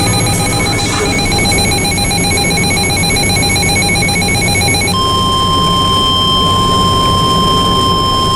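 Weather-radio alert tones: a rapidly pulsing electronic tone for about five seconds, then the steady 1050 Hz NOAA Weather Radio warning alarm tone that signals a warning broadcast is about to follow.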